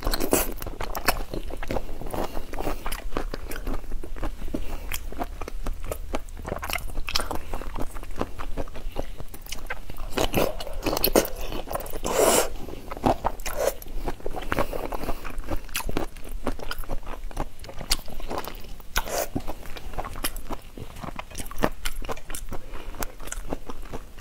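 A person eating whole shell-on shrimp in chili sauce, close to the microphone: repeated bites, the shells crunching, and wet chewing in a steady run of short crackles.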